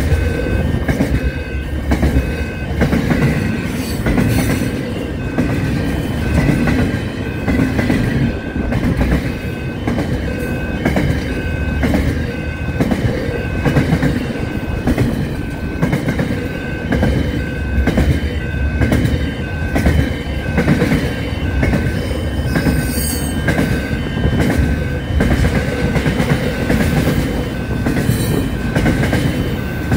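Freight train's container wagons rolling past close by: a steady rumble of steel wheels with a regular clickety-clack over the rail joints. A thin high wheel squeal comes and goes.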